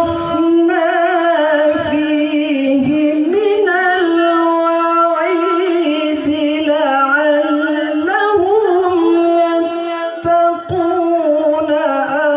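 A man reciting the Qur'an in the melodic tilawah (qiro'ah) style into a handheld microphone over a PA system. He holds long, ornamented notes whose pitch wavers and turns, pausing briefly for breath near the end.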